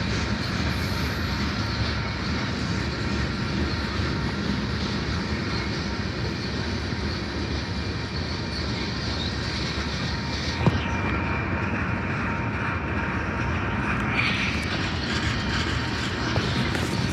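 Train passing on the tracks: a steady rumble of wheels on rail, with one sharp click or knock about two-thirds of the way through.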